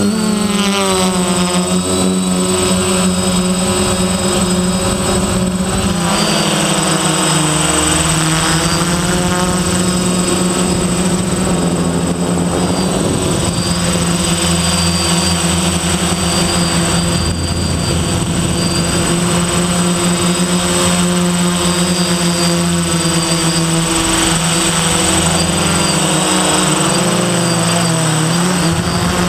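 Electric motors and propellers of a DJI F450 quadcopter running steadily in flight. The motor pitch dips and climbs as the throttle changes: about a second in, around six seconds in, and again near the end.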